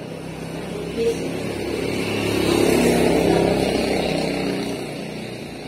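A motor vehicle driving past, its engine and tyre noise swelling to loudest about three seconds in and then fading away.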